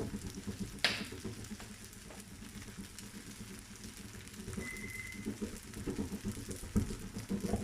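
Kimchi fried rice frying faintly in a pan, with a sharp clack about a second in and a short high-pitched tone near the middle.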